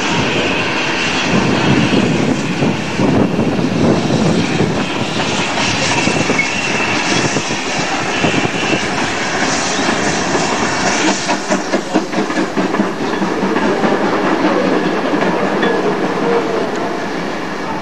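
GWR steam tank locomotive and its coaches running past on the rails. There is a quick rhythmic beat for a couple of seconds about two-thirds of the way through.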